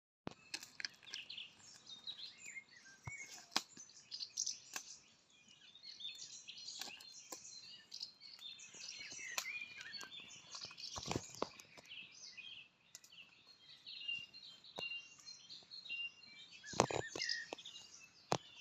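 Many small birds chirping and twittering in a dense, overlapping chorus of short high calls. Scattered sharp clicks or knocks sound through it, the loudest a little past the middle and again near the end.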